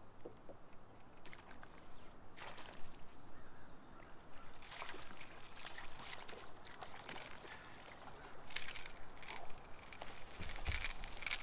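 Water splashing and sloshing from a topwater lure worked across the surface and a small bass thrashing on it as it is reeled in and swung aboard. The splashes come scattered at first and grow busier in the last few seconds.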